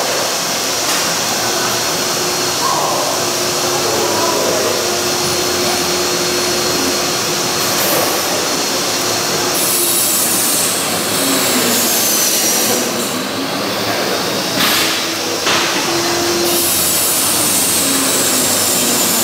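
A loud, steady machine whir with a faint held hum. In the second half, faint high whines fall slowly in pitch, and two sharp knocks come about fifteen seconds in.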